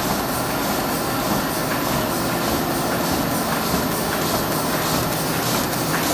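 Automatic paper embossing machine (YW-1150E) running, the steady mechanical noise of its drive and automatic sheet feeder with a regular clatter.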